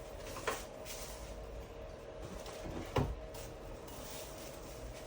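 Two short knocks as parts of a Nespresso coffee machine are handled, the second, about three seconds in, louder and with a dull thud, over a faint steady hum.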